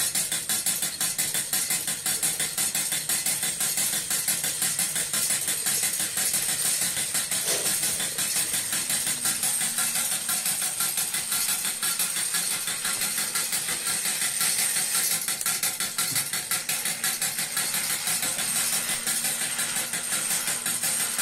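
Wilesco toy steam roller's small live-steam engine running, with a rapid, steady chuff from its exhaust as it rolls along.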